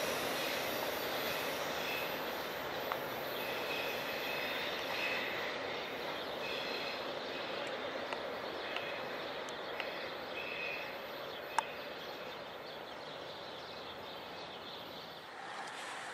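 Freight train of autorack cars rolling away around a curve: a steady rumble of steel wheels on rail with intermittent high wheel squeal, slowly fading as the train recedes. A sharp click about two-thirds of the way through.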